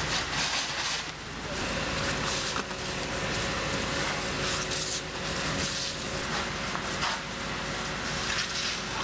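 Steady hissing noise of a burning caravan being fought with water, with a few louder cracks, over the steady hum of running engines.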